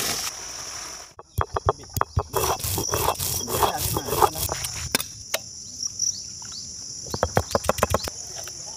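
Sharp knocks in irregular clusters, starting about a second in, from a stone roller pounding food on a stone grinding slab. Under them runs a steady high drone of insects.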